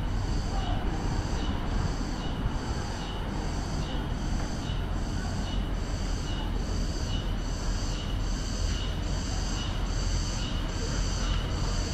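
Cicadas in the street trees, a high, shrill buzz that swells and fades about twice a second, over a low street rumble.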